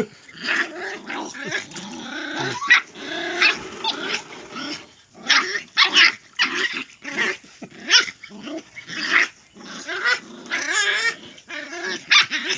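Dogs fighting: continuous vicious snarling and growling, broken by barks and sharp yelps, with a run of high yelping cries near the end.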